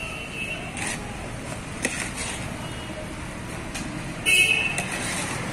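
Roadside traffic noise with a vehicle horn: a short toot at the start and a louder honk a little over four seconds in. A single sharp knock just under two seconds in.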